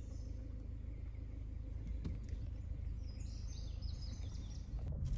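Birds chirping in a short run of high calls about three seconds in, over a steady low rumble.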